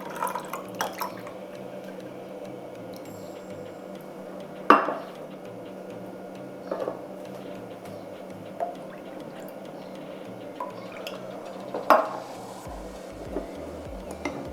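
Cold milk being poured into a glass, with a few sharp clinks of glass and utensils. The two loudest clinks come about five seconds in and near the end.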